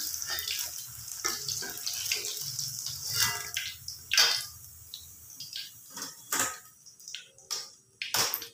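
Hot oil sizzling in a steel wok as vegetable chunks deep-fry, the hiss thinning out after about four seconds. Sharp clinks of a steel skimmer and steel bowl come through it, the loudest near the end.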